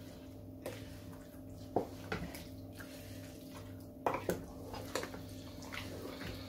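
Wooden spoon stirring a thick, wet soup in an aluminium pot: wet sloshing with several light knocks of the spoon against the pot. A steady low hum runs underneath.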